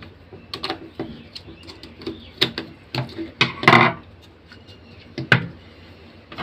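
Irregular clicks, taps and knocks of a hair trimmer's small plastic parts being handled while it is worked on, loudest about halfway through.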